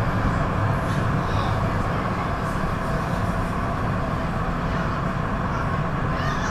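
1969 Duewag GT8 eight-axle articulated tram running at a steady speed: a steady drive hum with a thin whine over the running noise.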